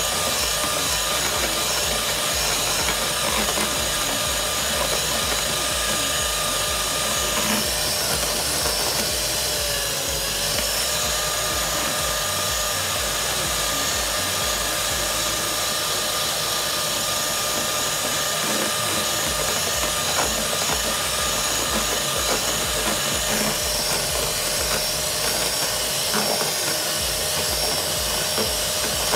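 Electric hand mixer running steadily, its beaters whipping egg whites and sugar into meringue; a steady motor whine under the whisking.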